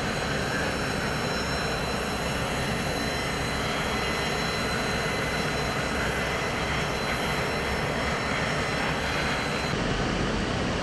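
Steady jet aircraft engine noise: a rushing roar with a high whine on top. The whine drops out near the end.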